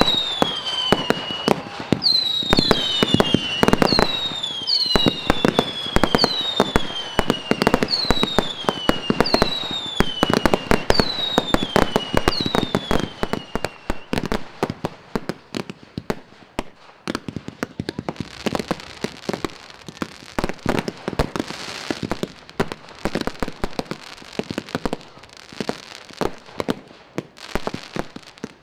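Fireworks going off in rapid succession: whistling fireworks give a string of falling whistles, about one a second, over dense sharp bangs. About halfway through the whistles stop and the display turns to quieter crackling with scattered pops.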